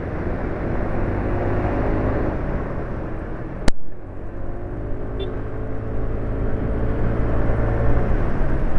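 Motor scooter engine running while riding along a road, with wind and road noise on the microphone. A single sharp click about four seconds in.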